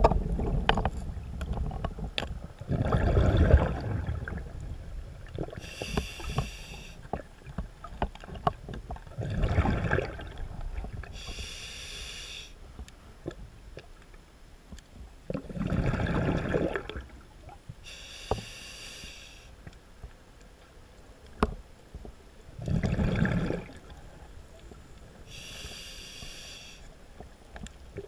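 Scuba diver breathing through a regulator underwater: a hissing inhale through the demand valve alternates with a low gushing rush of exhaled bubbles, four of each, a full breath about every six and a half seconds. Faint scattered clicks come in between.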